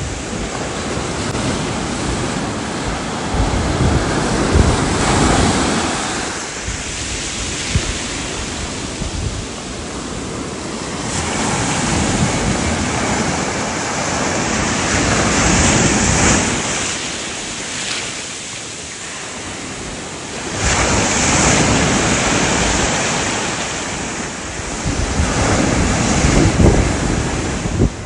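Ocean surf breaking and washing up a sandy beach, the rush of foam swelling and easing every few seconds.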